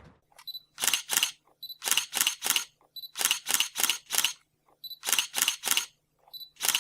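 Camera shutter firing in quick runs of two to four clicks, each run preceded by a short high focus-confirmation beep; this happens five times, with the last run a single click that cuts off abruptly.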